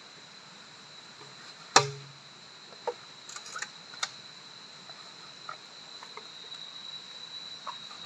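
A steady high insect drone with a loud sharp knock about two seconds in, like a blade striking wood, followed by a few lighter knocks.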